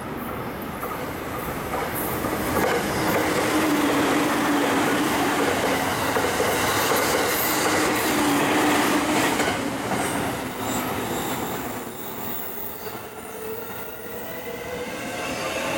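An orange-and-green striped JR commuter train passes on the adjacent through track, its wheels clattering over the rail joints. Near the end a Keihin-Tohoku line E233-series train starts pulling away from the platform, its traction motors whining upward in pitch.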